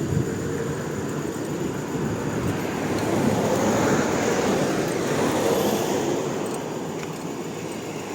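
An engine running steadily, easing off slightly over the last couple of seconds.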